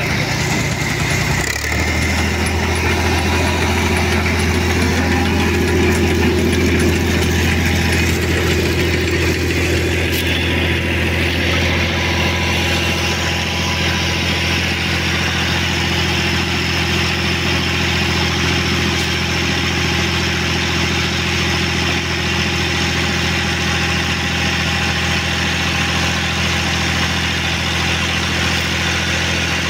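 Tractor engine running steadily, driving a capstan winch that reels in a seine-net rope. Its low note changes about a second and a half in, then holds even.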